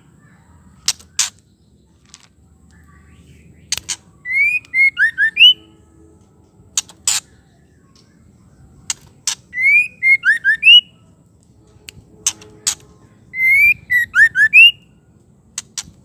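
Female white-rumped shama calling. Sharp clicking notes alternate with a short phrase of five or six quick whistled notes that rise and fall. The phrase comes three times, about every four and a half seconds.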